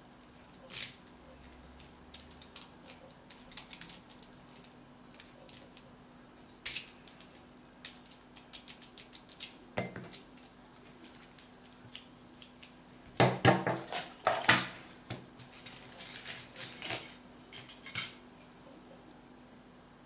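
Light metallic clicks and ticks of a dimple pick and tension tool working the pins of a brass Magnum 7-pin dimple euro cylinder during single-pin picking. Scattered single clicks, with a cluster of louder metal clatters a little after the middle and one more sharp clack near the end.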